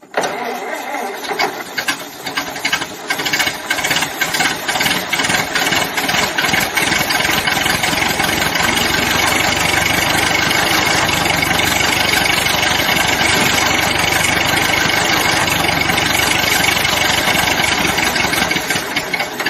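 Old car engine starting up: it runs unevenly, in separate irregular beats, for the first few seconds, then settles into steady running.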